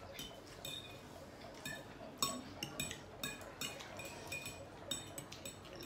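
Metal fork clinking and scraping against a ceramic plate while twirling spaghetti: faint, irregular light clicks, some with a short ring.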